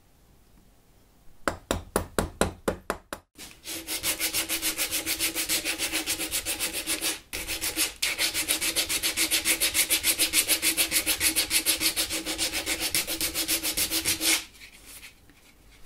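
Hand sanding of an old oak table foot with an abrasive sanding pad, rubbing across the repaired crack to bring the glued-in veneer fill flush. It starts with a few separate strokes, then settles into fast, even back-and-forth strokes of about four a second, and stops shortly before the end.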